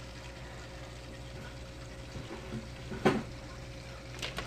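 Aquarium water bubbling and trickling steadily from the tank's filter or air line, over a low hum. A single sharp tap comes about three seconds in, with a couple of faint clicks near the end.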